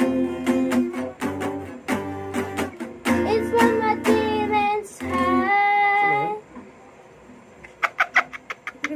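Acoustic guitar strummed under a girl's singing, closing on a held sung note about six seconds in. Near the end, a burst of laughter.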